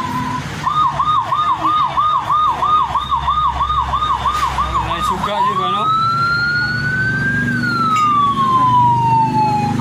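Electronic siren sound effect from a kids' toy motorcycle: a fast yelp pulsing about three times a second, then switching a little after five seconds to one long wail that rises and slowly falls.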